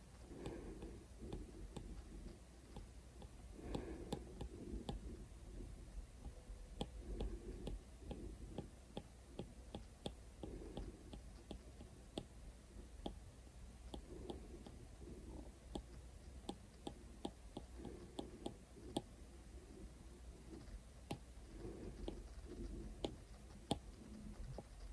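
Apple Pencil tip tapping and stroking on an iPad's glass screen while painting: many small, irregular clicks with soft brushing strokes in between.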